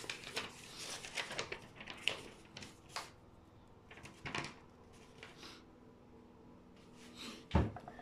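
Hands fetching and handling a printed paper list: scattered light rustles and small knocks, then one dull thump a little before the end.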